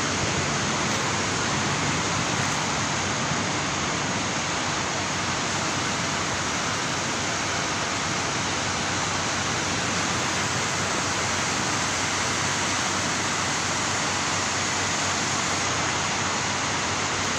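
Heavy rain pouring down in a downpour, a steady, even hiss throughout.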